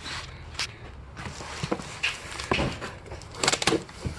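Cardboard box being opened and its contents handled: irregular rustles and scrapes with a few sharp knocks, the loudest a cluster near the end.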